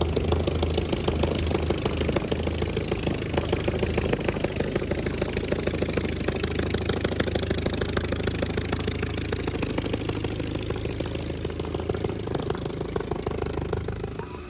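Bücker Jungmann biplane's engine ticking over at low power as the aircraft taxis, a steady, evenly pulsing run.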